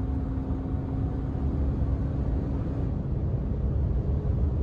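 Steady low rumble of road and engine noise inside a car's cabin, with a faint hum that fades out about three seconds in.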